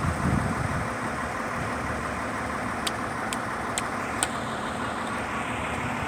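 Truck-mounted crane's engine running steadily at idle, with four short sharp clicks about three seconds in.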